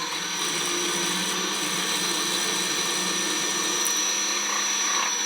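A small electric power tool's motor running at a steady high speed with a constant whine.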